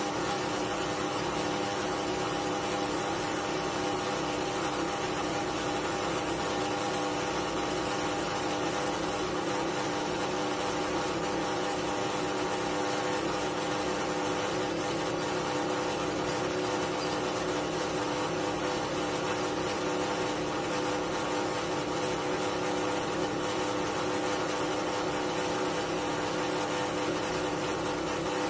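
Scheppach DP19 Vario drill press running free at a constant speed: a steady motor-and-spindle hum with several held tones, unchanging throughout.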